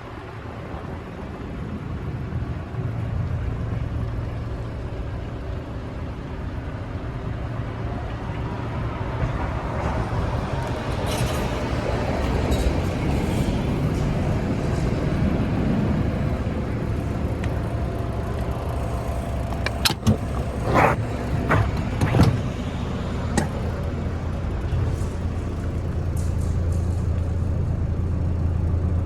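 Renault Mascott 150.65 truck's 3.0-litre diesel engine running steadily, its hum getting louder a couple of seconds in, with a short cluster of sharp knocks about two-thirds of the way through.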